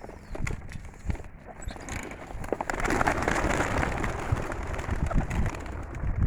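Racing pigeons being released and taking off together: a dense flurry of flapping wings that swells about two seconds in and lasts a few seconds, among scattered wing claps.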